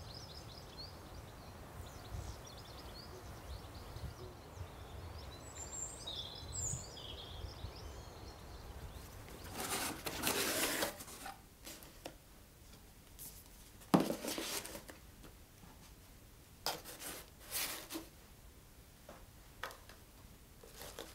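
Outdoor ambience with a few faint bird chirps. Then a cardboard box is handled and opened by hand: a sliding rub of cardboard, a sharp knock about two-thirds of the way through, and two short rustles of the packing.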